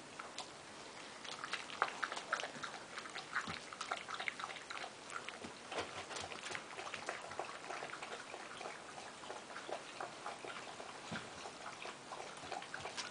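Several six-week-old puppies eating dry kibble from a glass bowl: a rapid, irregular clatter of crunching and kibble clicking against the bowl, starting about a second and a half in.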